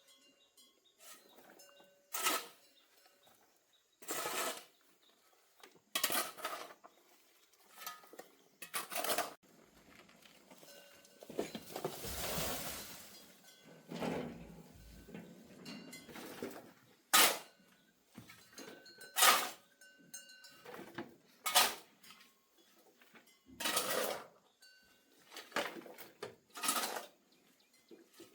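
Hand digging tool biting into earth about every two seconds as ground is dug by hand, with a longer scraping rush of soil about twelve seconds in.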